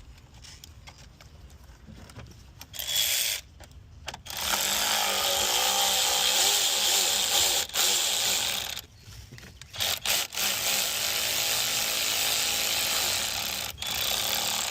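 Cordless power tool with a 10 mm socket spinning a bolt into the thermostat area of a GM V6, in several bursts of a few seconds each, its motor pitch wavering under load. The bolt runs in freely and snugs tight, the sign that it has found its right hole.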